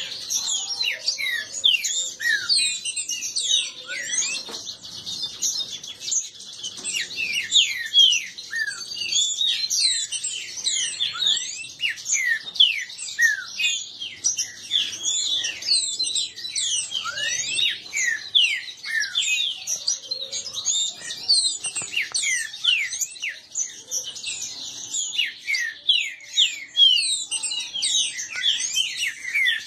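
Caged green-winged saltators (trinca-ferro) singing against each other in a song contest: a dense, continuous run of quick overlapping whistled chirps and short falling notes.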